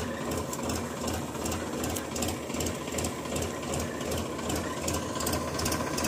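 Tractor-mounted mini combine harvester running: the diesel tractor engine drives the reel, cutter bar and threshing mechanism, with a steady engine hum under a rhythmic mechanical clatter.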